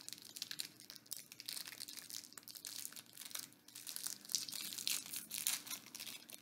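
Plastic snack-cake wrapper crinkling in irregular crackles as it is handled and opened by hand.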